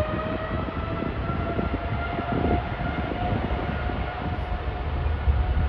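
Jet airliner's engines running with a whine that rises slightly in pitch over the first couple of seconds and then holds steady, over a low rumble.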